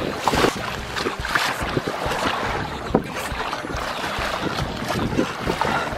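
Water splashing and rushing along the hull of a small sailboat under sail, in irregular surges, with wind buffeting the microphone.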